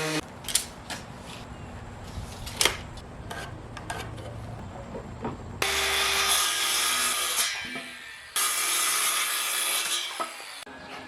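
Woodworking on pallet boards: a few scattered knocks, then about halfway through a power tool runs on the wood in two loud stretches of a few seconds each, starting and stopping abruptly.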